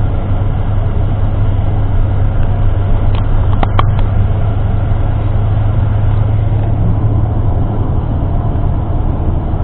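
Inside a tour bus: a steady low engine drone with road noise. A brief clicking comes about three and a half seconds in.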